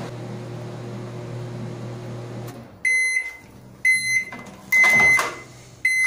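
Philco PMS24 microwave oven running with a steady low hum, now quiet since its shorted magnetron was replaced. The hum stops about two and a half seconds in, and the oven then beeps about once a second.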